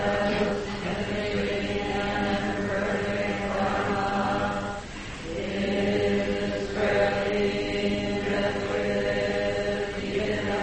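Slow devotional chanting on a steady, drawn-out pitch, with a brief break for breath about five seconds in.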